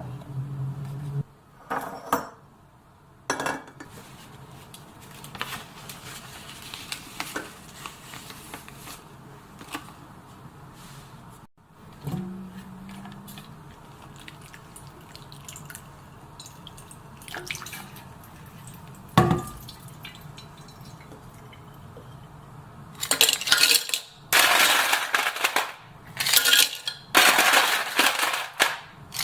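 Dishes and metal utensils clinking and knocking, with scattered single knocks and then a busier run of clatter in the last several seconds.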